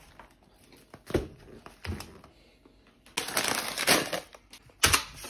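Grocery packages being handled and set down on a countertop: a couple of light knocks, then plastic packaging rustling and crinkling for about a second and a half, and another knock near the end.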